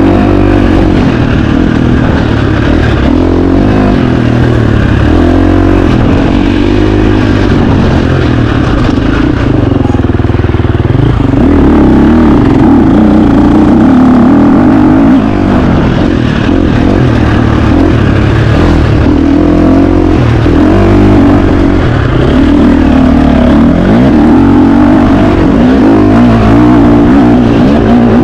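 2025 KTM 350 XC-F's four-stroke single-cylinder engine being ridden hard. The revs rise and fall continuously with throttle and gear changes.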